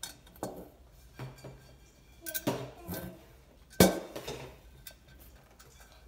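Steel nuts and bolts clinking and knocking against a perforated stainless-steel cutlery holder in scattered light taps, with one sharper, louder knock about four seconds in.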